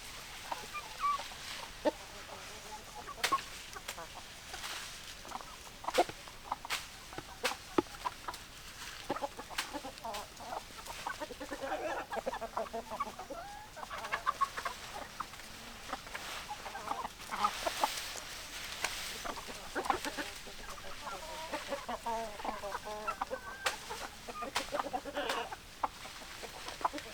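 Hens clucking, their short calls coming thick and overlapping from about nine seconds in, with sharp clicks and taps scattered throughout.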